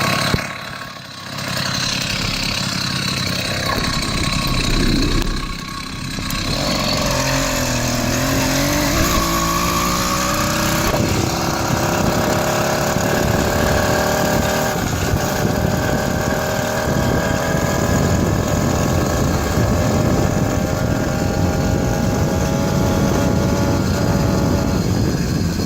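Chinese 80cc two-stroke motorized-bicycle engine under way on the bike. It dips twice in the first few seconds, climbs in pitch as the bike picks up speed, then runs steadily. The owner says it still doesn't run right however rich he sets it, and that it bogs when cold.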